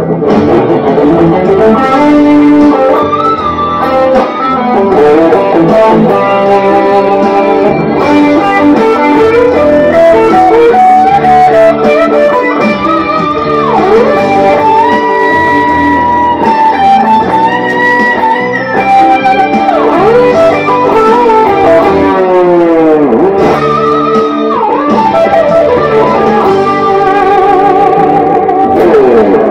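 Electric guitar, a sunburst Stratocaster-style, played lead: sustained melodic notes with several string bends gliding up and down in pitch, and a wavering vibrato on a held note near the end.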